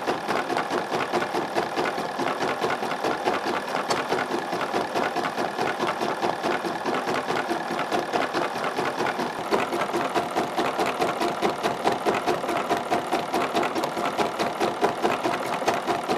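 BERNINA 780 embroidery machine stitching steadily with metallic thread, a rapid, even clatter of needle strokes.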